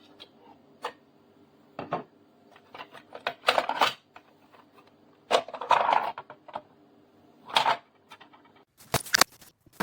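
A series of clicks and clatters of hard objects being handled, over a faint steady hum; the densest clatter comes about three and a half seconds in, about five and a half seconds in, and just before the end.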